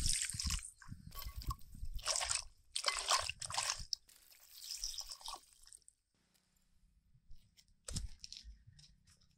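Wet sounds of cooking in a pot in several short bursts, such as liquid splashing and food being stirred, then a single sharp knock about eight seconds in.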